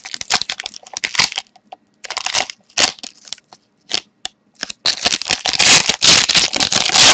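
Hockey card pack wrapper crinkling and tearing as it is opened, in short irregular spurts with gaps, then a longer stretch of steady crinkling near the end.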